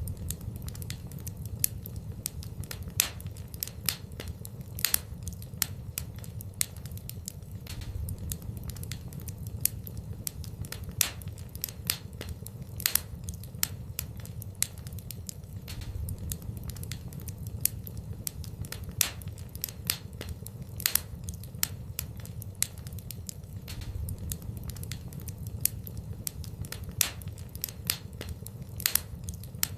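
Fire burning in a fireplace, crackling with many sharp pops of varying loudness over a low steady rumble.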